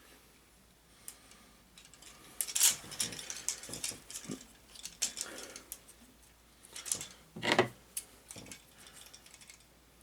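Hands working a plastic toy sword free of its packaging tie: plastic rustling and clicking, loudest in two bursts, about two and a half and about seven and a half seconds in.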